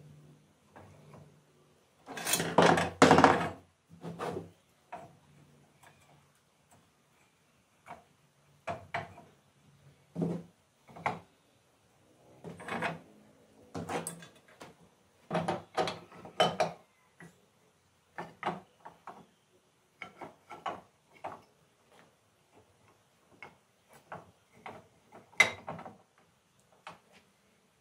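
Cut wooden pieces knocking and clattering as they are set down, slid and butted together on a wooden workbench: scattered short knocks, with a dense burst of clatter about two to three seconds in and a sharp single knock near the end.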